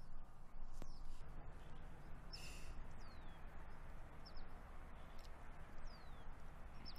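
Faint outdoor field ambience: a steady low hiss of air and background noise with a few short, high bird chirps and downward-sliding whistles scattered through it.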